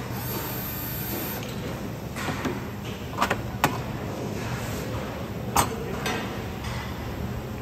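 Metal-and-glass oven door handled on a workbench: a few sharp knocks and clicks, two close together about three seconds in and another a couple of seconds later, over a steady workshop hum.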